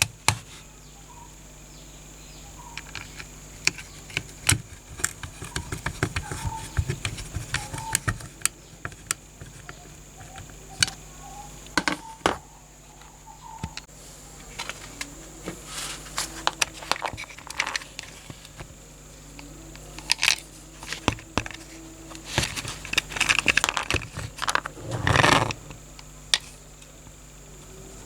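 Small metal parts of a die-cast toy car being handled and worked: irregular clicks, taps and light jangling rattles, with a denser run of rattling just before the end.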